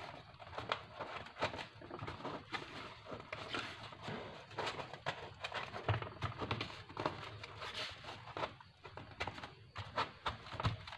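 A cardboard box being handled by hand: irregular taps, scuffs and rubbing of cardboard as it is pressed and slid about on a cutting mat.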